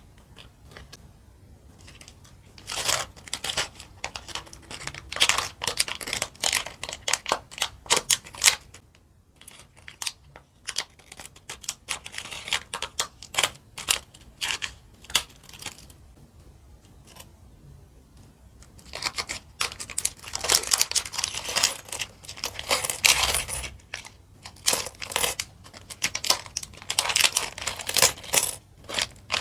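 Mini plastic building bricks being handled and fitted together: rapid runs of small, sharp plastic clicks and rattles, coming in bursts with short pauses between them.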